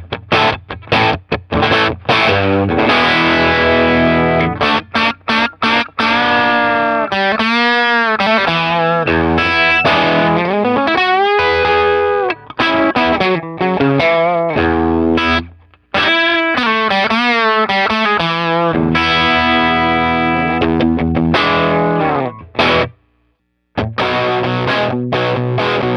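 Electric guitar played through a Sound City SC20 tube combo amp (two 6V6 power tubes) with distortion: choppy chords, then sustained lead notes with string bends. The playing stops briefly near the end, then a new riff starts.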